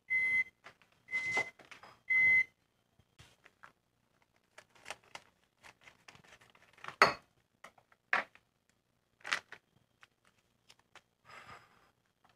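Three short electronic appliance beeps in the first two and a half seconds. Then the crinkling of a plastic food pouch and snips of kitchen scissors cutting it open, with one sharp snip or knock about seven seconds in.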